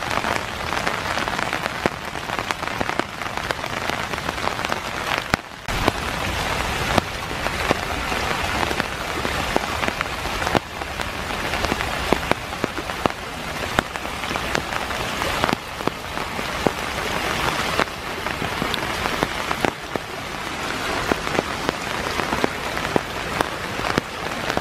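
Rain-swollen runoff stream rushing down a wooded hillside over wet leaves, with rain falling. A steady wash of water noise with scattered sharp little taps.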